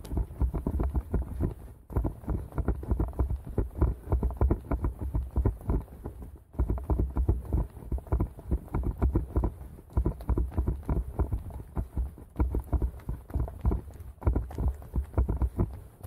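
A runner's footsteps: a steady, quick rhythm of thudding footfalls at running pace, with two brief breaks.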